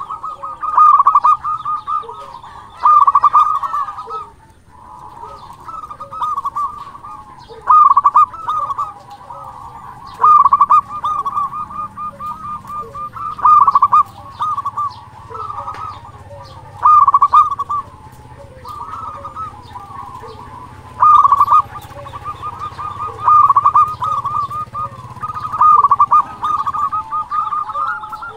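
A local zebra dove (perkutut) singing its rolling, staccato cooing song. A loud phrase comes every two to four seconds, with softer cooing notes between.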